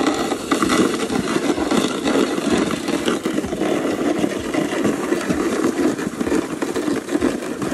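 A sled being pulled by a rope across packed snow, its base scraping with a continuous rough rumble.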